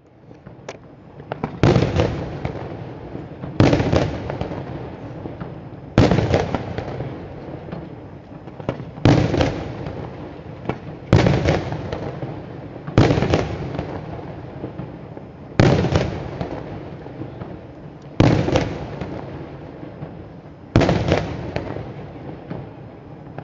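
Daytime fireworks: aerial shells bursting in loud bangs, nine in all, about one every two to three seconds, each fading away in a long rolling echo. A few small cracks come just before the first bang.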